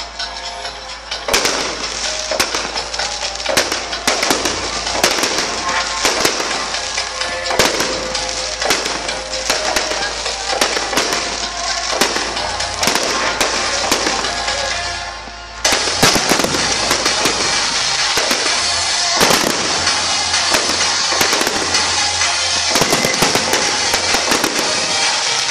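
Aerial fireworks display: shell bursts going off in quick, dense volleys over continuous crackling, starting about a second in and suddenly getting louder a little past halfway.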